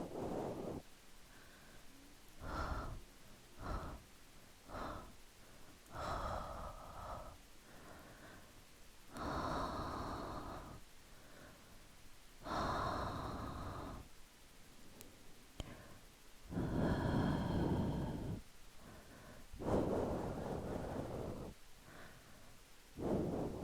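A person breathing slowly for breath ASMR: long, airy 'haa' and 'fuu' exhales about every three seconds, with shorter breaths between them.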